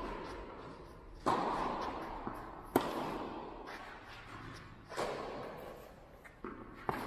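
Tennis rally: racket strings striking the ball four times, about two seconds apart, each crack trailing off in the echo of a large indoor hall; the loudest comes a little under three seconds in.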